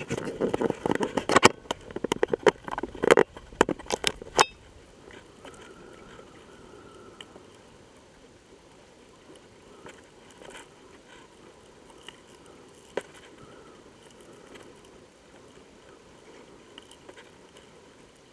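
A rapid run of knocks, clicks and scrapes for about the first four and a half seconds as the camera in its waterproof case is handled and settled, then a faint, steady wash of water along a small wooden sailing boat's hull with an occasional tick, all muffled by the case.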